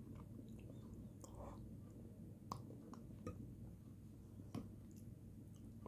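Quiet eating of halim, a soft wheat porridge, with a metal spoon: a few sharp clicks, three of them clearest, over a low steady hum.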